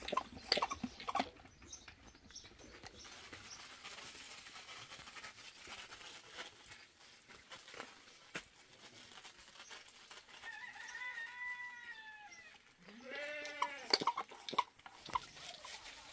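Goat bleating: a long, high, slightly falling call about ten seconds in, then a lower, wavering bleat a second later, with scattered clicks and knocks around them.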